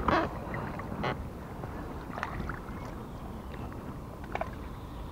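Small inflatable boat being worked on a river: a steady low rumble of wind and water with a few scattered knocks and clicks from handling the gear and net aboard.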